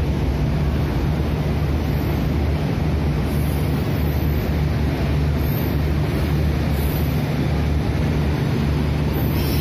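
Passenger train rolling along a station platform: a steady low rumble and hum.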